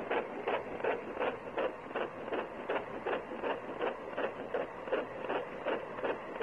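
A rhythmic mechanical clatter, about three even beats a second, that cuts in and out abruptly.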